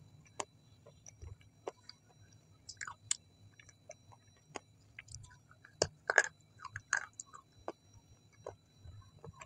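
A person chewing food close to the microphone, with wet mouth clicks and smacks scattered unevenly; the loudest cluster comes about six seconds in.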